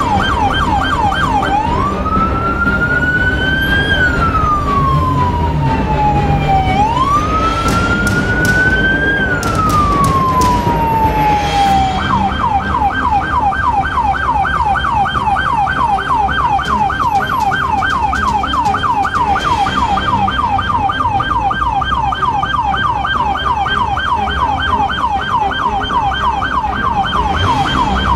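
Police siren changing modes: a fast yelp at first, then two slow wails that each rise and fall over about five seconds, then back to the fast yelp from about twelve seconds in.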